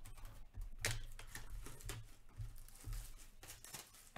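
2022-23 Upper Deck Artifacts hockey cards sliding and flicking against one another as a stack is sorted through by hand. A series of short papery rustles, the loudest about a second in.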